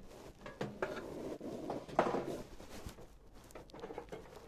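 Rustling and a few scattered knocks in a small room, the loudest knock about two seconds in.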